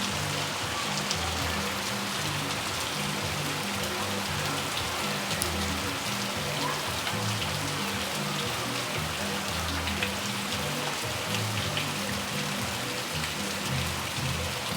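Heavy rain falling, a steady hiss with scattered drop ticks. Low bass notes of music, changing pitch every second or so, run underneath.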